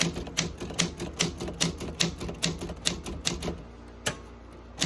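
Olympia SM7 manual typewriter keys struck in a quick run, the typebars clacking about five times a second for roughly three and a half seconds, then two more single strokes near the end.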